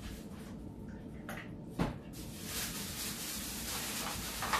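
Kitchen handling noise: a sharp click or knock about two seconds in, with a fainter one shortly before it, over a steady low hum.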